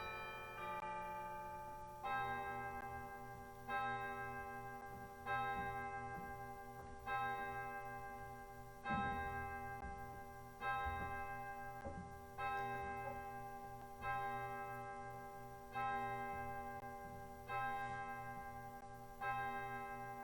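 A single bell tolling at a slow, steady pace, about one strike every second and a half to two seconds, each strike at the same pitch and ringing away before the next.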